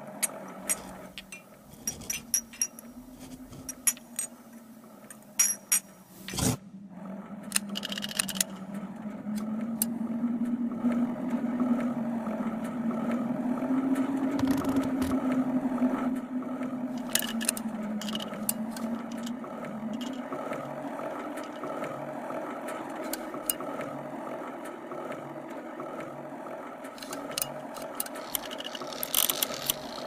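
Mechanical sound effects: small clicks, taps and scrapes over a steady low hum that drifts slowly up and down in pitch. The sharpest click comes about six seconds in, the hum swells from about ten seconds in, and a quick run of clicks comes near the end.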